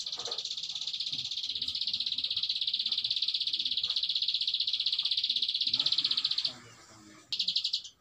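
Prenjak alang-alang (a prinia) singing its long 'ngebren': a very fast, buzzing trill held for about six and a half seconds, breaking off, then a short burst of the same trill near the end.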